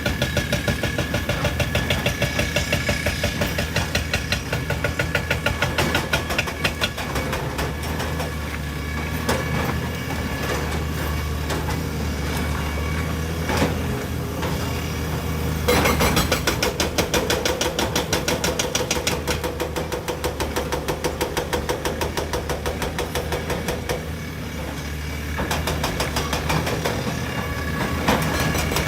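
Heavy excavator's diesel engine running with a fast, regular pulsing beat and a thin steady tone above it, getting louder about 16 seconds in and easing off around 24 seconds.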